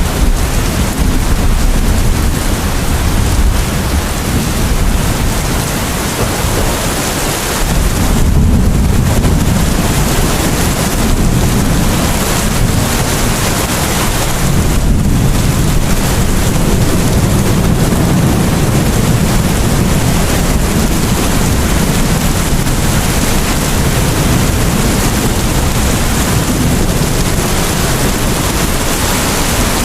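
Heavy, steady rain with a deep low rumble of thunder underneath, swelling about eight seconds in.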